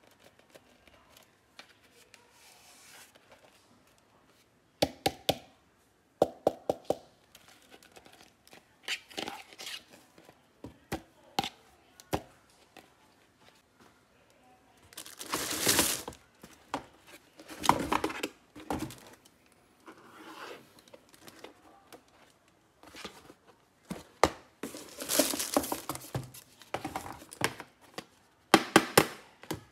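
Unboxing noises: clear plastic wrap crinkling and rustling in a cardboard box, with sharp clacks of hard plastic toy pieces being knocked and set down. The loudest crinkling comes in two stretches, about halfway through and near the end.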